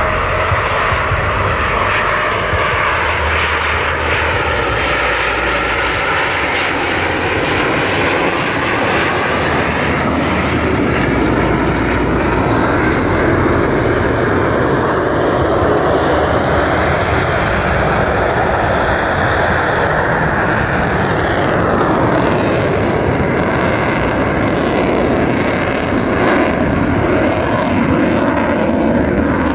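Blue Angels F/A-18 Hornet jets passing overhead: a loud, steady jet roar with slow sweeping changes in pitch as they pass. About two-thirds of the way in it turns rougher, with sharp crackling.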